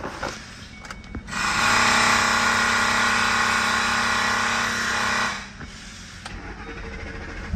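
A power tool's electric motor running with a steady whine for about four seconds, then winding down.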